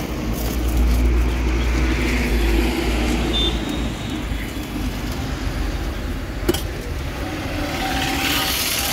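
Street traffic noise from passing vehicles, with a heavy low rumble for the first three and a half seconds that then eases off. A single sharp click about six and a half seconds in.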